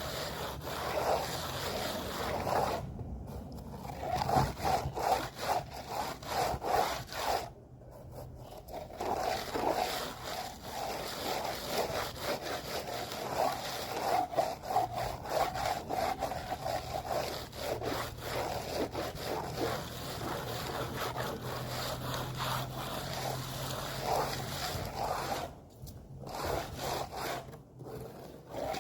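A hand tool worked back and forth in rapid, continuous scraping strokes on a building surface, like sawing or rubbing. It pauses briefly a few times.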